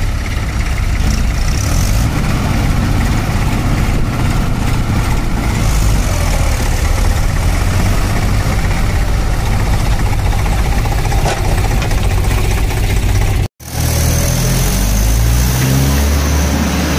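Mahindra 585 DI tractor's four-cylinder diesel engine running under load, pulling a fully loaded trolley of soil through mud. The sound drops out for an instant about 13 seconds in, then the engine goes on with its note rising and falling.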